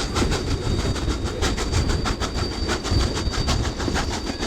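Steam train in motion: Baldwin 2-8-2 locomotive No. 18 and its coaches working uphill, with a fast, even beat and a thin steady high tone over a low rumble.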